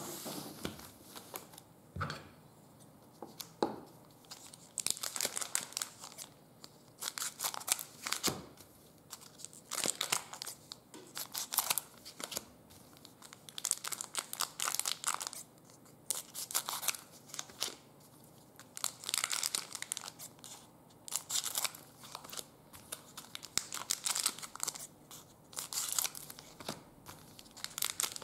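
Trading card pack wrappers being torn open and crinkled, in repeated short bursts of tearing and rustling.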